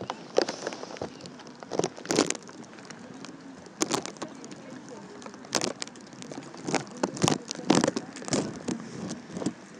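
Irregular taps and crackles of raindrops landing close to the microphone, over faint voices in the background.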